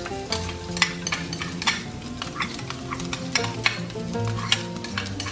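Minced garlic dropping into hot palm oil in a pan and starting to sizzle, while a metal spatula scrapes and taps it out of a small bowl with many sharp clicks. Steady background music notes play underneath.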